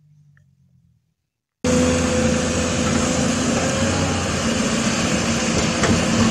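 Faint low hum, then about one and a half seconds in a sudden cut to the loud, steady running of a heavy crane tow truck's engine, with a steady hum in it.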